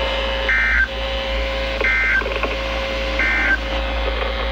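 A weather alert radio beeping three times, about a second and a half apart, over a steady tone from the receivers: the receiver's alert for a severe thunderstorm warning.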